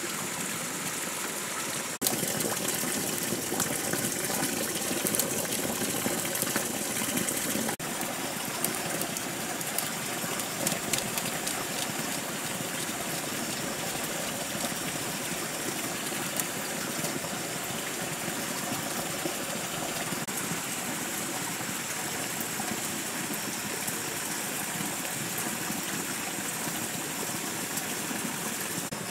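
Steady rush of running water, with scattered faint clicks.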